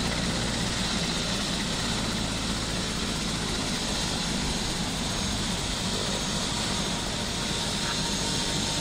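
Light turbine helicopter running on the ground with its main rotor turning: a steady rotor and engine noise with a high turbine whine over a low rumble.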